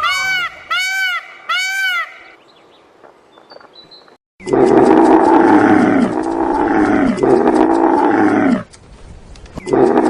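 Tiger roaring: long, loud, low calls that fall in pitch, breaking briefly between calls, pausing for about a second near the end and starting again. The first two seconds hold a quick series of honking bird calls.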